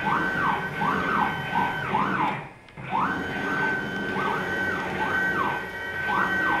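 Stepper motors of an Avid Pro 4848 CNC router whining as the gantry is jogged by hand control. The pitch rises as the axes speed up, holds at a steady high whine at top speed and falls as they stop. There are several short back-and-forth moves, a brief pause about two and a half seconds in, then a longer move held at top speed.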